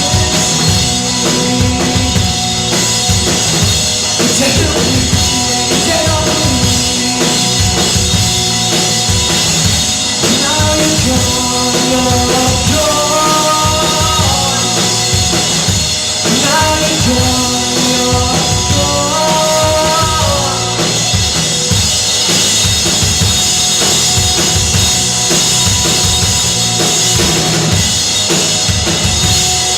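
Live rock band playing an instrumental passage: a drum kit keeps a steady beat with bass drum and snare under dense amplified backing. A melody line stands out in the middle stretch.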